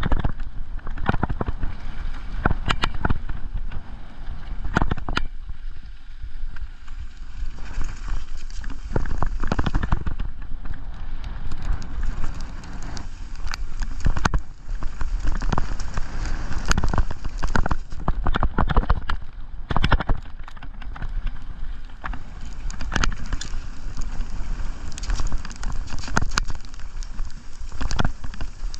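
Mountain bike riding fast down a rough gravel trail: a steady rumble of tyres on loose stones, with frequent irregular knocks and rattles as the bike hits bumps and roots.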